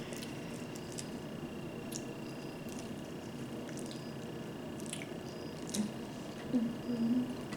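Close-up eating sounds of a saucy seafood boil: scattered wet squishes and small clicks of fingers and lips working at sauce-covered crab or shrimp, with chewing. A short low hum of a voice comes about six seconds in.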